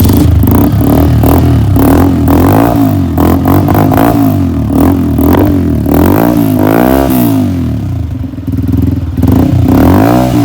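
Honda CG125's single-cylinder four-stroke engine running loud through a newly fitted HKS aftermarket exhaust, being blipped again and again so the pitch rises and falls every second or so. About seven seconds in it gets a longer, higher rev, then settles to a steadier run before more blips near the end.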